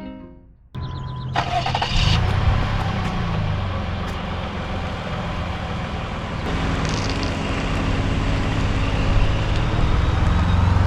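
Car running and driving: a steady low engine rumble under road and wind hiss, beginning abruptly about a second in.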